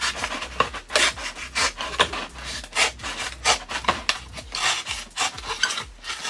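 A knife sawing back and forth through a cardboard paper towel tube, a scratchy rasp about twice a second.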